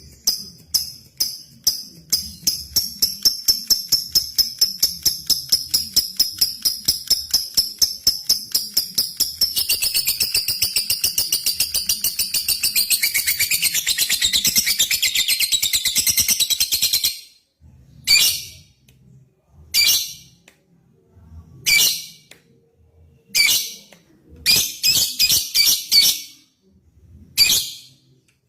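Lovebird giving its long chattering 'ngekek': a rapid run of sharp high ticking calls that speeds up into a continuous trill for several seconds and stops about 17 seconds in. After that come short bursts of chirps, one every second or two.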